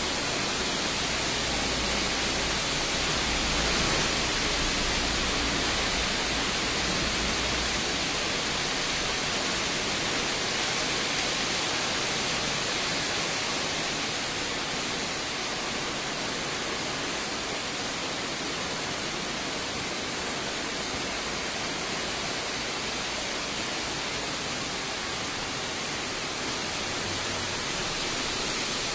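Heavy monsoon rain pouring down in a steady, dense hiss, with a low rumble of wind in the first several seconds.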